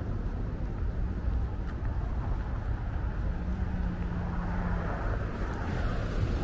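City street ambience: a steady low traffic rumble, with the tyre noise of a car growing louder near the end as it approaches.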